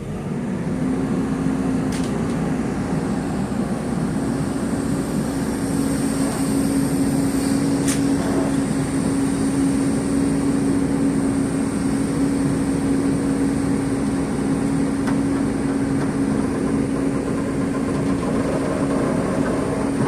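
Heavy diesel engine of an excavator picking up revs just after the start, then running steadily at high revs, with a couple of faint clicks.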